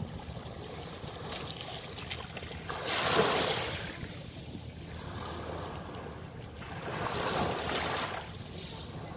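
Small sea waves washing up onto a sandy beach: two swells of surf, about a second long each and some four seconds apart, over a steady low rumble of wind on the microphone.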